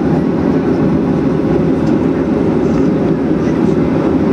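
Steady cabin noise inside a Boeing 737-800 rolling on the ground: the CFM56 jet engines and the airframe's rumble. The noise is loud and even throughout.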